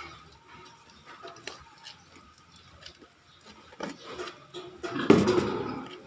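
A plastic chicken drinker being handled and taken apart: light clicks and knocks, then a louder scraping clatter of plastic parts near the end.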